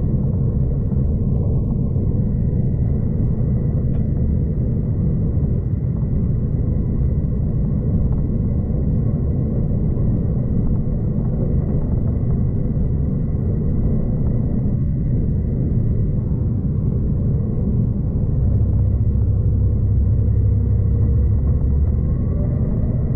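Passenger train running along the track, heard from inside the carriage: a steady low rumble with a faint, steady high-pitched whine above it. The rumble swells louder for a few seconds near the end.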